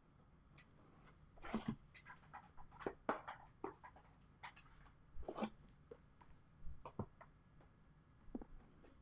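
Faint scattered rustling, crinkling and light knocks of cardboard and shrink-wrapped trading card boxes being handled and set down while a case is unpacked.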